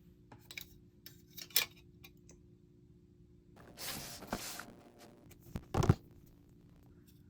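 Plastic model-kit parts being handled: a few light clicks, a rustle about four seconds in, then several sharp plastic snaps, the loudest near six seconds.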